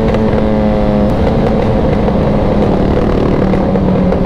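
Superbike engine running under way at steady revs while the rider shifts down through the gears; its pitch changes in steps about a second in and again past three seconds.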